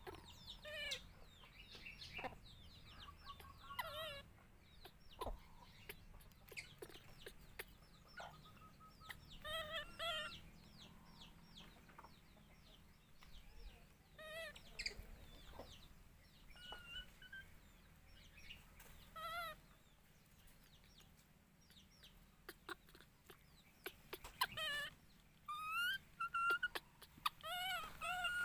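Scattered short, squeaky animal calls that rise and fall in pitch, a few at a time with pauses between, more of them and louder near the end.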